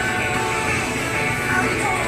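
Background music playing at a steady level.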